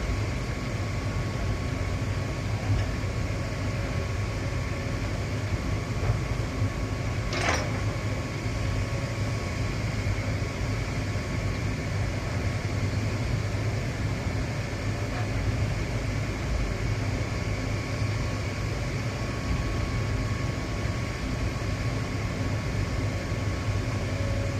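Heavy machinery engine running steadily with a low rumble, with one brief sharp click about seven and a half seconds in.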